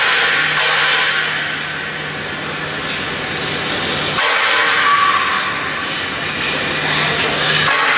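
5-axis CNC router for foam carving running, its spindle giving a steady hissing whine over a low hum as the head travels around the foam block. The sound changes abruptly about four seconds in and again near the end.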